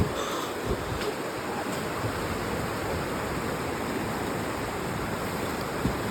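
Steady rushing of a river in flood, swollen by hurricane rain.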